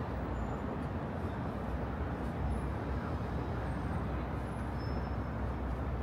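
Steady city traffic noise: a continuous low rumble of road vehicles with no single event standing out.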